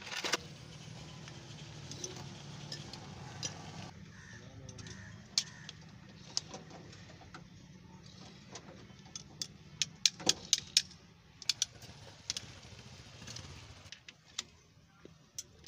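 Metal clinks and taps as drum brake shoes and their hardware are handled, with a quick run of sharp clicks about ten seconds in. A steady low hum runs underneath and stops near the end.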